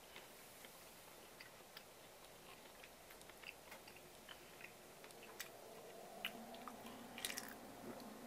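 Near silence: room tone with faint, scattered small clicks, a few more of them in the second half.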